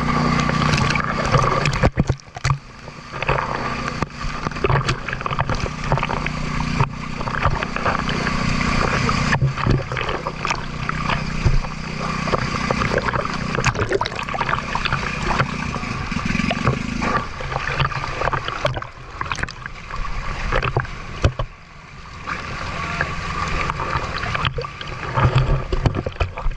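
Small fishing boat at sea: water sloshing and splashing, with scattered knocks. Under it runs a steady low hum that drops away about two-thirds of the way through.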